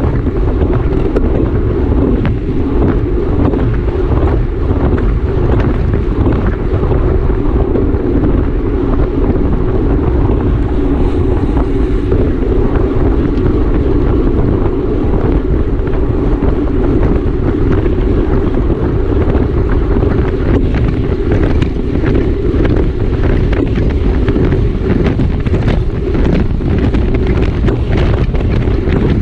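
Wind rushing over the microphone of a camera carried on a racing bicycle at speed: a loud, steady roar, with many small clicks and rattles scattered through it.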